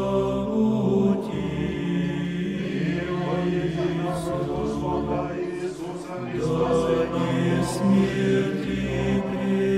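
Voices singing Orthodox liturgical chant in long, held notes, phrase after phrase, with a short break between phrases a little past halfway.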